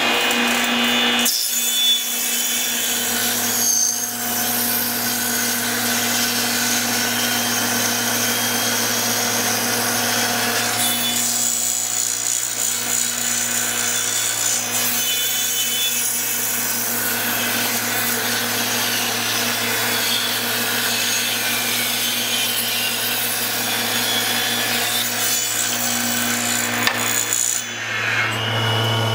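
Table saw running and ripping a thick wooden slab lengthwise: a steady motor hum under the loud, continuous noise of the blade cutting through the wood, with a brief dip near the end as the cut finishes.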